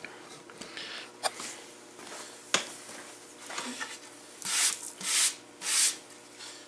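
A hand brushing sawdust and chips off a freshly line-bored panel in three quick swishes, starting about four seconds in, after a few light knocks as the board is handled.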